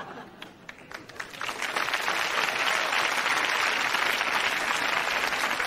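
Crowd applauding: a few scattered claps at first, swelling into steady, dense applause after about a second and a half.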